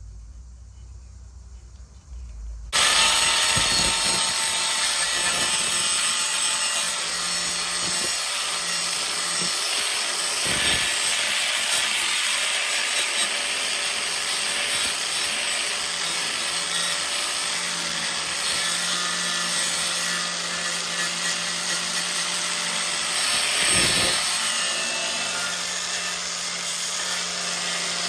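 A power tool cutting the sheet metal of a truck body panel during rust repair. It starts suddenly about three seconds in and runs on steadily.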